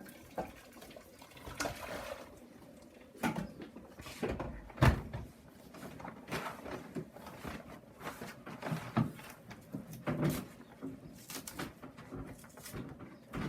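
A full paper vacuum-cleaner dust bag, heavy with rice, being handled and pulled at: irregular rustling and crinkling with short knocks, and one heavier thump about five seconds in.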